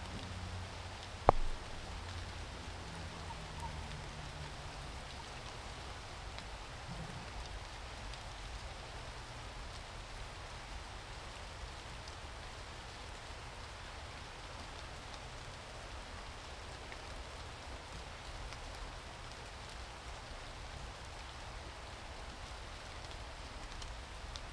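Steady rain falling, with one sharp click about a second in.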